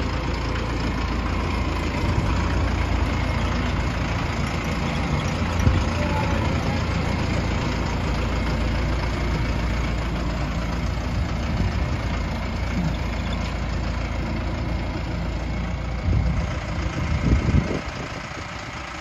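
Mahindra tractor's diesel engine running at low revs as the tractor drives slowly, a steady low rumble. A few louder low thumps come near the end.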